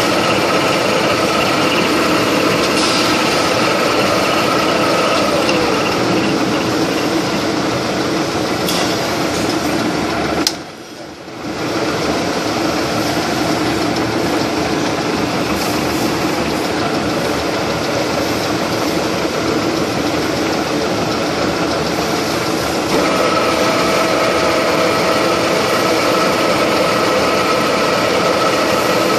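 Milling machine running, its spiral end mill side-milling a hexagon flat on a metal fitting: steady machining noise with a high whine over the motor. The sound drops away for about a second roughly ten seconds in, then comes back, growing louder again later on.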